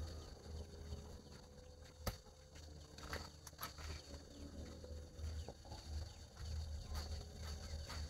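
Quiet outdoor ambience with a steady low rumble and faint animal calls, broken by a few sharp clicks and knocks as a large woven bamboo basket is picked up and handled, the loudest about two seconds in.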